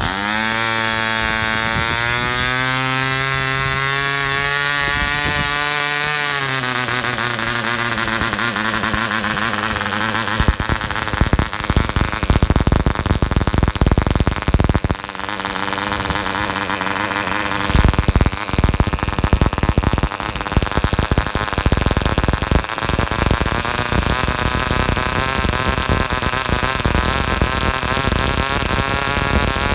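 Taipan "Series 66" 1.5 cc model diesel engine catching and running, swinging an 8x4 propeller. Its speed climbs slightly, sags after about six seconds, runs unevenly for several seconds, then steadies and picks up again later on. This is the first run on a new, very tight piston, being run in.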